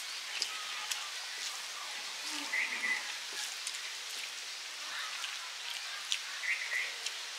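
Quiet eating by hand: fingers mixing rice on metal plates and chewing, heard as scattered light clicks and smacks over steady outdoor ambience, with a couple of short bird chirps.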